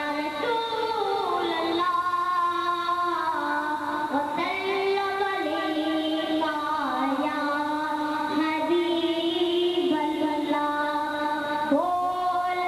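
A solo voice singing a slow devotional melody, with long held notes that glide between pitches.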